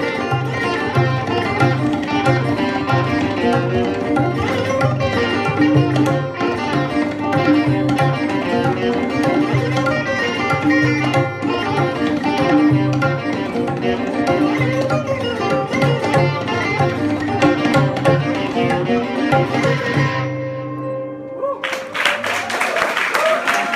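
Live Indian fusion instrumental: sarod and electric guitar over a steady, regular low drum pulse. The music ends on a held note about 20 seconds in, and applause breaks out near the end.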